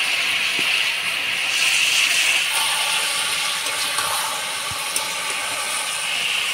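Vegetable curry for a fish chorchori sizzling steadily in the pan as the fried fish pieces are added, with a few light clicks of the utensils.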